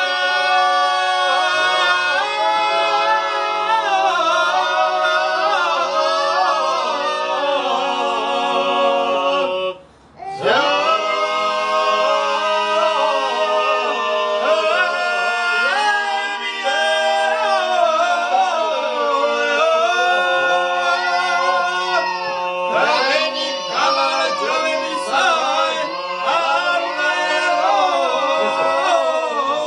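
Several men singing a Georgian folk song a cappella in close harmony, the voices moving over a steady held low note. The singing breaks off for a moment about ten seconds in, then resumes.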